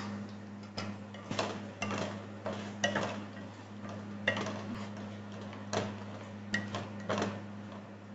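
Wooden spatula scraping and knocking against a stone-coated pan while stirring chicken and vegetables in a thick sauce, about ten irregular strokes, over a steady low hum.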